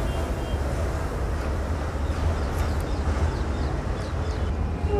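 Steady low outdoor rumble with an even background hiss.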